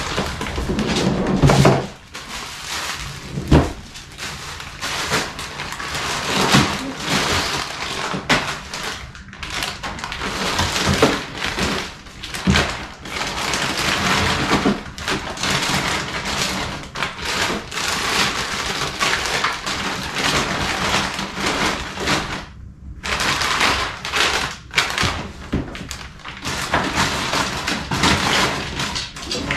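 Plastic grocery packaging rustling and crinkling, with knocks and thuds of frozen items and the wire basket as they are packed into a refrigerator's pull-out freezer drawer. The rustling is dense and continuous, breaking off briefly about three-quarters of the way through.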